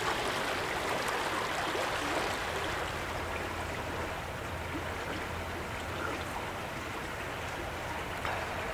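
Creek water running steadily over a rocky riffle.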